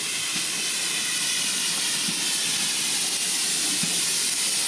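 GWR 1400 class 0-4-2 tank engine No. 1450 drifting in with its train, giving off a steady hiss of escaping steam.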